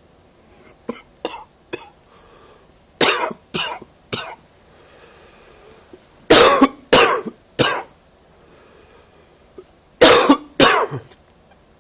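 A person coughing from a cold, in four fits of two or three sharp coughs each: a few light coughs about a second in, then harder fits, the loudest at about six to eight seconds, and two last coughs near the end.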